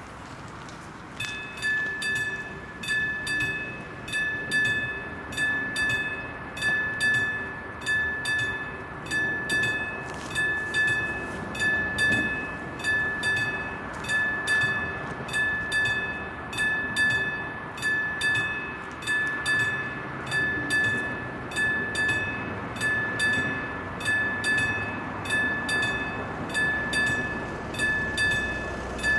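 Level-crossing warning bell starting up about a second in and ringing on at an even pace, a little over one stroke a second, as the AŽD 71 crossing signals switch on: the crossing is warning of an approaching train.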